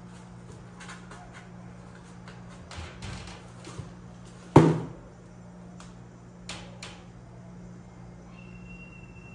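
Cardboard box rustling and scraping lightly as a cat noses into it, then one sharp thump of the cardboard about halfway through as the cat paws the rim and pushes out of the box, followed by two light taps.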